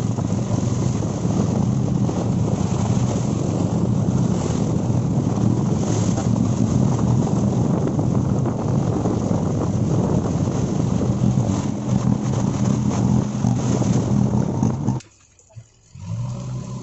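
A vehicle engine running steadily, with wind rushing over the microphone. The sound cuts out suddenly about fifteen seconds in, and a quieter, different steady sound starts a second later.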